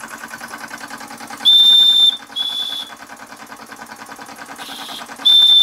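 Empire B-43 model steam engine running with a fast, even beat while its boiler's steam whistle is blown in three short, high toots, the second a little lower than the first, with a brief hiss of steam between the second and third.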